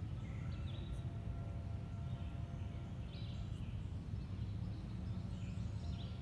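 Woodland ambience: birds chirping now and then over a steady low background rumble.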